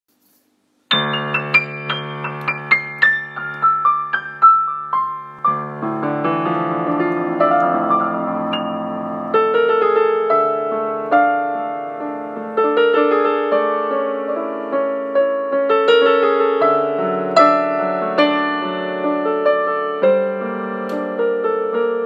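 Solo piano music starting about a second in: a falling run of high single notes, then held chords with a melody line above them.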